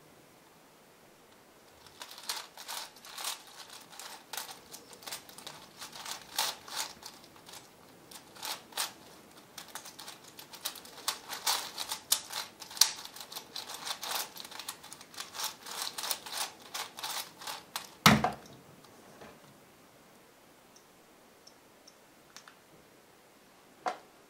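V-Cube 7 (7x7x7 puzzle cube) being turned fast: after a short pause, a long dense run of plastic clicking and clacking as the layers are twisted. It ends in one loud thud as the finished cube is set down on the wooden table, followed by a couple of light taps near the end.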